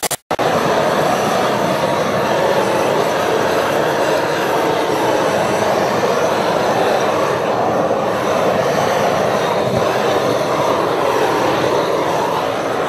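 Propane gas torch burning at full flame, a loud steady roar of burning gas that starts abruptly just after the beginning and holds unchanged.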